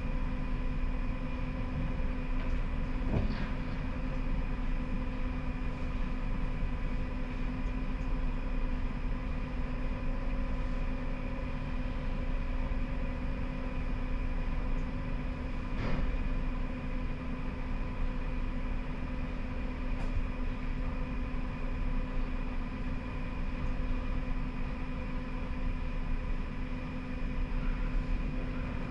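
Siemens Combino tram heard from inside the driver's cab: a steady electrical hum made of several fixed tones over an even low rumble, with a couple of faint clicks.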